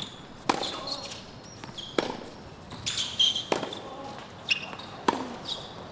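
Tennis ball struck by rackets on a hard court: a serve, then rally shots, four sharp hits about one and a half seconds apart, with short high squeaks between them.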